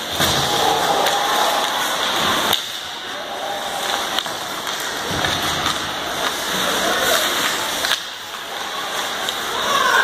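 Ice hockey play in a rink: skates scraping the ice and sticks and puck clacking over a steady spread of spectator chatter, with a few sharp knocks.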